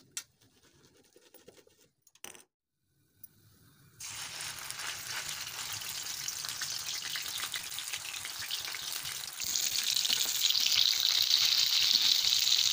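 Besan-coated spinach (palak pakoda) frying in hot oil in a kadhai: a steady sizzle with crackling that starts suddenly about four seconds in and grows louder about nine seconds in. Before it, only a few faint clicks.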